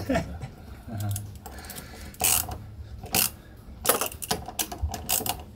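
Screwdriver tightening a stainless hose clamp on a bilge-pump hose: a run of irregular clicks and short scrapes of metal on metal.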